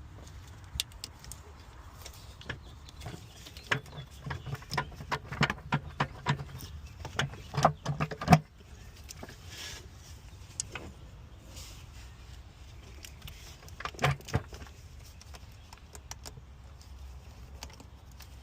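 Hands working a stubborn plastic electrical connector on a throttle body, making a quick run of clicks and knocks in the first half that is loudest about eight seconds in, then a few more knocks about fourteen seconds in. A low steady hum runs underneath.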